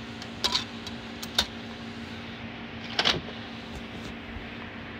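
Disc being handled and slid into a PlayStation 3's slot-loading drive: a few sharp clicks in the first second and a half, then a louder clattering knock about three seconds in, over a steady low hum.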